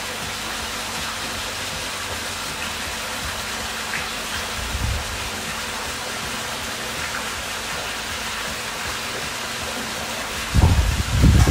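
Steady rushing noise of running water, even and unbroken. About ten and a half seconds in come a few loud low thumps.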